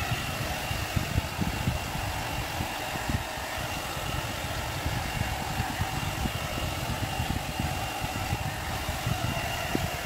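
Agaro volumizer hot-air brush running steadily: its blower motor gives a rush of air with a steady high whine, cutting in abruptly at the start.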